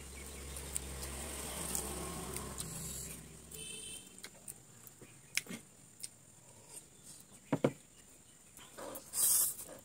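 Eating sounds: forks clicking against the plate and leaf, and a short slurp of noodles near the end. A low steady rumble underneath fades out a few seconds in.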